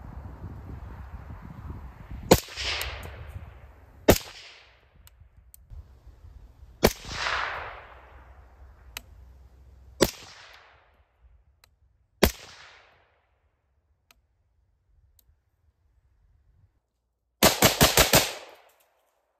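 Suppressed .223 AR-style rifle fired through an Anechoic titanium 223 suppressor: five single shots a couple of seconds apart, two of them followed by a long rolling echo, then a fast string of about six shots near the end.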